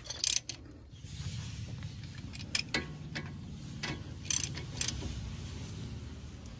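Ratchet and socket working on the front brake caliper's bolts, with scattered sharp metallic clicks as the bolts are tightened. A low steady hum comes in about a second in and runs underneath.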